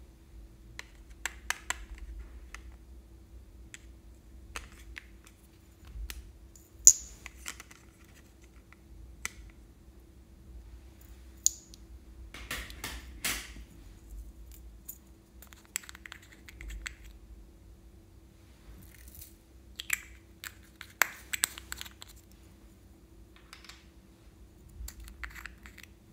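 Small clear plastic glitter pots and containers being handled and opened: scattered sharp clicks and light taps of plastic, with a longer rustle about halfway through. A faint steady hum lies under it.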